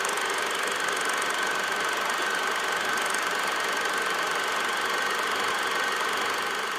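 A machine running steadily, with an even mechanical noise and a thin high whine over it.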